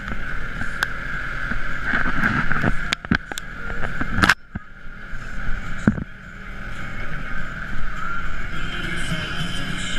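Side-by-side off-road vehicle's engine running steadily as it drives a rough dirt trail, heard from on board. Around three to four seconds in comes a cluster of sharp knocks and rattles as the vehicle jolts and branches brush past, then one more knock about six seconds in.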